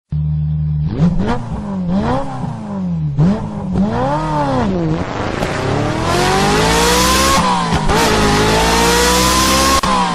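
Ferrari engine idling briefly, then revved several times with quick rises and falls in pitch. From about five seconds in it accelerates hard, the pitch climbing steadily, with a gear change about seven seconds in before it climbs again.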